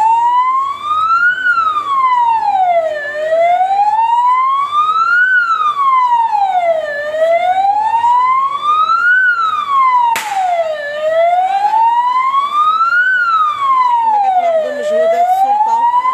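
Wailing siren on an Auxiliary Forces Renault van, rising and falling slowly, one full sweep about every four seconds. A single sharp click about ten seconds in.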